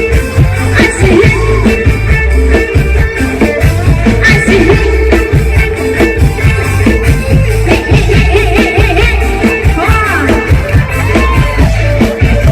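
Loud live band music for ramwong dancing: a steady drum and bass beat with guitar and a singing voice.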